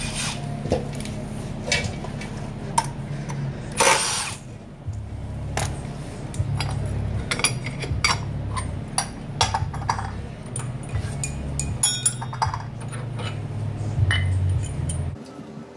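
Metal hand tools clinking and clicking on the mini bike's engine bolts and frame as the stock engine is unbolted, in many short sharp strokes, with one louder, rougher burst about four seconds in.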